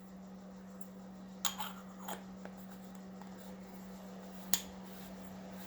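A few light clicks and taps as aluminum tube-assembly parts are handled, over a steady low hum.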